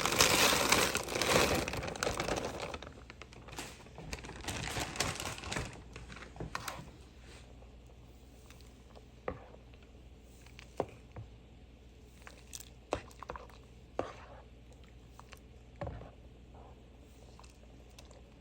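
Plastic bag of frozen home-style noodles crinkling as it is handled and emptied into the pot, heaviest in the first few seconds and fading out after about seven seconds. A few separate light clicks follow.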